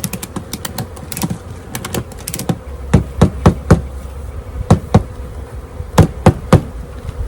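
Swarm of package honeybees buzzing around a freshly installed hive, a steady hum. Over it runs a series of sharp clicks and knocks, loudest and most spaced out in the second half.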